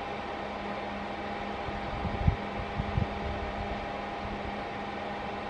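Steady hum of the powered-up inverter welding machine, most likely its cooling fan running, with a few soft low bumps about two and three seconds in.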